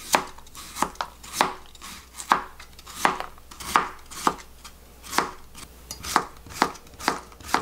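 Kitchen knife slicing a white cucumber into thin rounds, about two or three millimetres thick, and knocking on the cutting board with each cut. The knocks are regular, roughly two a second.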